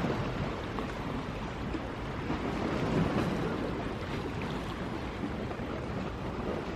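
Sea waves washing ashore, with wind rumbling on the microphone; the wash swells a little about three seconds in.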